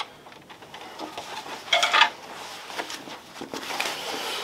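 Fabric rustling and swishing from a blaze-orange Sitka Ballistic hunting vest being handled and pulled on, in irregular bursts with the loudest one about two seconds in.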